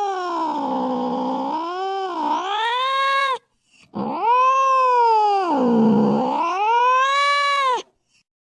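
A cat yowling in long drawn-out calls whose pitch sinks low in the middle and climbs back up. One call ends about three and a half seconds in, and a second runs from about four seconds to nearly eight.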